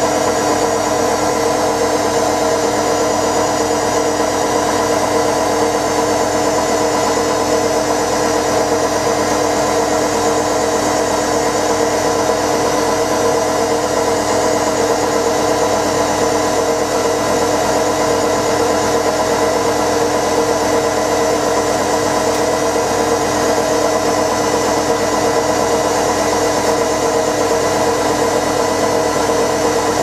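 Hoover AC158 Classica 1000 front-loading washing machine on spin, its motor and drum turning at a steady high speed and giving a steady whine of several tones over a rushing hum.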